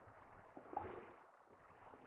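Near silence, broken about three-quarters of a second in by one faint, short guinea pig call.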